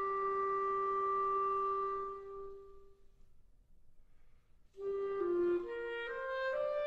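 Unaccompanied clarinet holds one long note that fades away to near silence. After a pause of about two seconds, a new phrase begins with short notes stepping upward.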